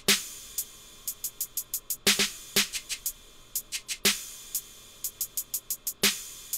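Hip-hop drum pattern playing from Native Instruments Maschine. A loud hit lands about every two seconds, with quick runs of short high ticks between them.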